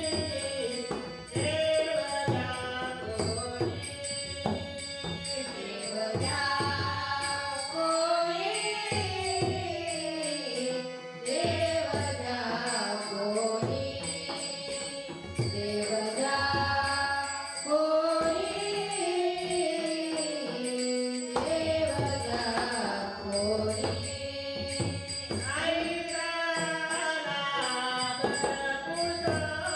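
A woman's voice singing a Marathi abhang devotional song with a bhajan group, over steady drum beats and jingling percussion.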